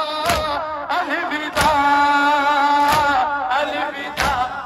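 A crowd of men beating their chests in unison (matam), a sharp slap about every second and a third, four strikes in all. Men's voices sing a noha lament over the strikes.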